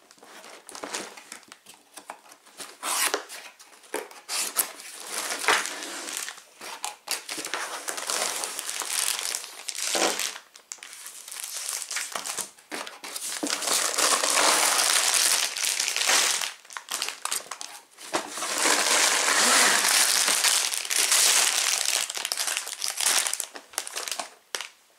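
Sealed plastic bags of Lego parts crinkling and rustling as they are pulled and tipped out of the opened box, with small clicks of the pieces. The crinkling comes in short bursts, then in two long, loud stretches in the middle and later on.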